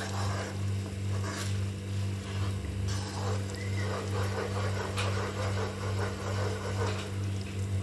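Spatula stirring thick, bubbling gravy in a nonstick pan, with soft scraping and a few light knocks against the pan, over a steady low hum.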